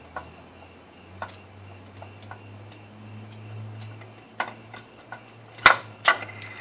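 Scattered, irregular metallic clicks and clinks of a tool and loose hardware while the last screw holding a throttle body is undone, with two sharper knocks near the end. A low steady hum sits underneath.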